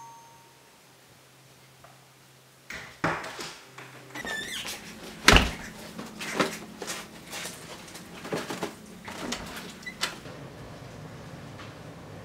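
A front door unlatching with a couple of sharp clicks and swinging open with a short squeak, then a heavy thump followed by a string of small knocks and rustles as a package is handled.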